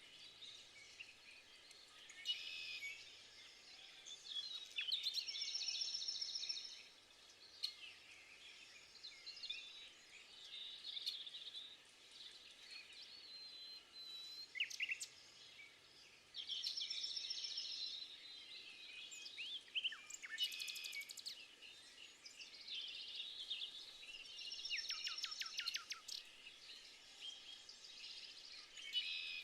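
Several songbirds singing and calling at once, overlapping chirps and whistled phrases, with a louder trilled song recurring about every ten seconds, over a faint outdoor background.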